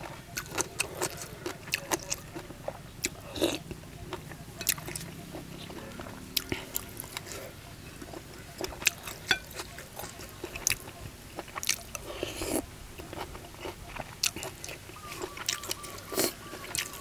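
Close-miked eating: crunchy chewing and biting of boiled beef tripe and papaya salad, heard as many irregular sharp crunches and clicks.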